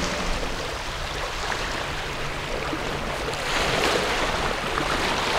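Sea waves washing against the rocky shore, a steady rushing of water that swells briefly about three and a half seconds in.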